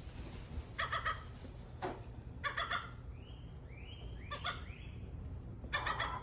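Birds calling: short, rapid clucking call series repeated about five times, with a few brief rising calls in between.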